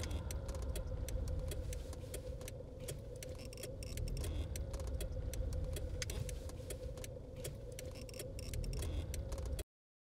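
Small car's engine idling with a low rumble and a steady hum, with scattered irregular clicks over it; the sound cuts off abruptly near the end.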